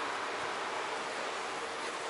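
Steady, even rushing outdoor ambience of breeze and distant sea surf, with no distinct events.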